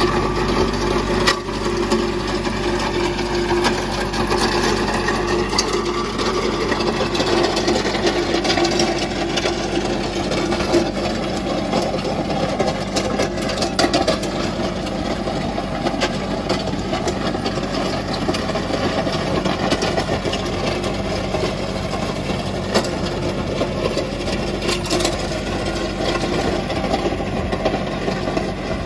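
Mahindra compact diesel tractor running steadily while it drags a box blade, the blade and its ripper teeth scraping through gravel and dirt with scattered small crunches of stone.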